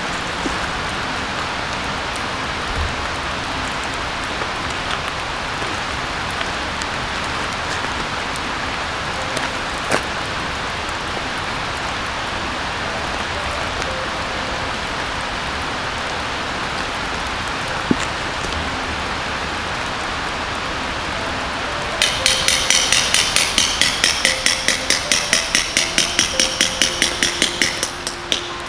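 Steady rain falling in the forest. Near the end, a quick run of sharp metallic taps, about four or five a second, with a faint ring.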